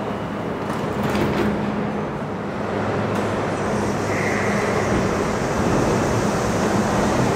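R42 subway train starting to pull out of the station, its running noise building as it picks up speed, with a few clanks about a second in.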